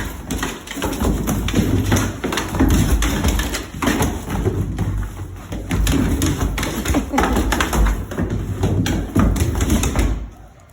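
Footsteps climbing stairs: a quick, irregular run of thuds and taps that stops abruptly near the end.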